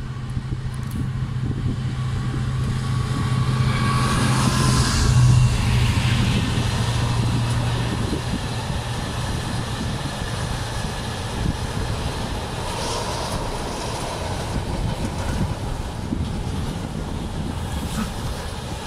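Diesel freight locomotive passing with a steady engine drone that is loudest about five seconds in and fades away by about eight seconds. Then comes the steady rumble of a long container train's wagons rolling past on the rails, with brief wheel squeals.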